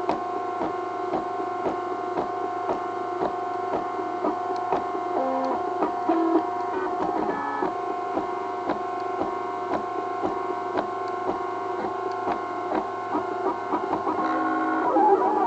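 MakerBot Thing-O-Matic 3D printer running a print: its stepper motors give a steady whine that jumps to a new pitch as the moves change, with regular ticks about two or three times a second.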